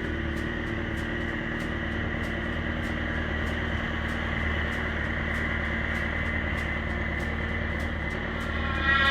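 Snowmobile engine running steadily with a regular light ticking, then starting to rev up right at the end.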